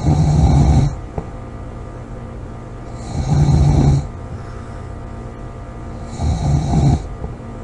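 Woman snoring loudly: three snores about three seconds apart, each lasting about a second.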